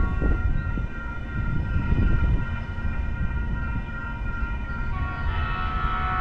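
Distant railway warning sounds, steady high tones that grow louder about five seconds in, over a low rumble.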